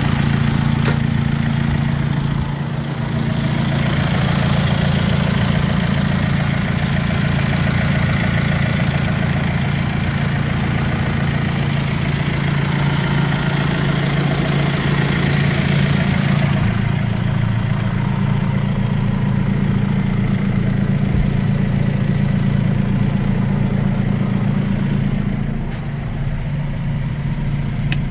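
John Deere 6130R tractor's four-cylinder diesel engine idling steadily, a low even hum. About halfway through the higher sounds drop away and the idle continues more muffled. A sharp click comes about a second in.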